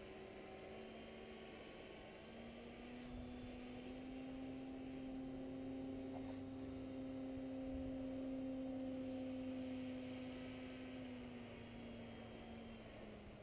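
Distant paramotor engine and propeller droning in a steady hum overhead. The drone grows louder toward the middle; its pitch rises a little a few seconds in and falls back near the end.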